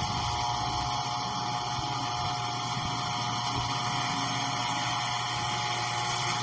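Refrigerator running: a steady, unchanging hum with a faint whine.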